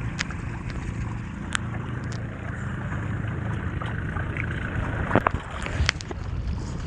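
Small boat's motor running steadily under wind and water noise, with a few sharp knocks or clicks about five to six seconds in.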